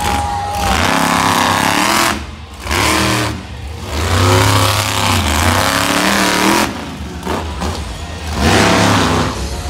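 Monster truck engine revving hard, its pitch rising and falling with the throttle. The sound drops away briefly three times, about two, three and a half and seven seconds in, as the throttle is lifted.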